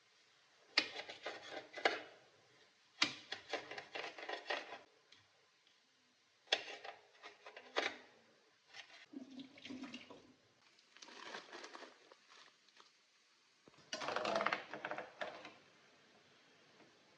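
Water splashing and running in about six short bursts of a second or two each, with crackly clatter, as when something is washed or rinsed at a kitchen sink.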